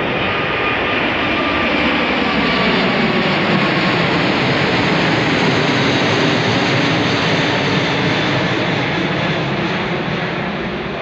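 Departing Airbus A380-842 passing overhead, its four Rolls-Royce Trent 900 jet engines at climb power: a loud, steady roar that is strongest midway and eases off toward the end as the jet moves away.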